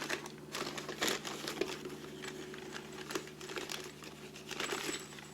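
A bag crinkling and rustling in irregular bursts as it is opened and handled; the bag holds screws.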